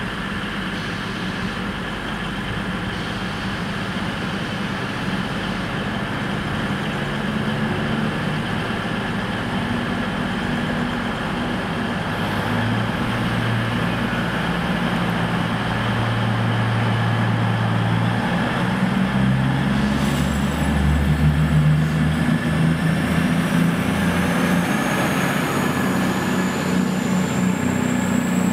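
Cross Country Class 220 Voyager diesel-electric multiple unit's underfloor diesel engines running at the platform, then throttling up in steps as the train pulls away. A high whine climbs steadily in pitch over the last few seconds as it gathers speed.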